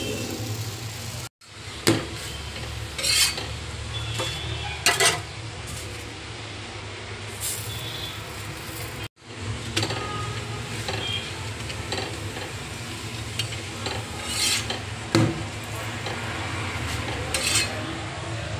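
A metal spatula scraping and tapping several times on a hot griddle as a stuffed paratha roasts, with a faint sizzle over a steady low hum. The sound cuts out briefly twice.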